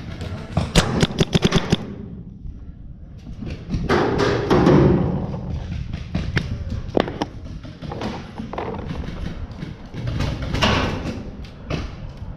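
Paintball markers firing in rapid strings of sharp pops, about seven or eight a second, in a burst during the first two seconds. Scattered single shots follow, then another burst near the end.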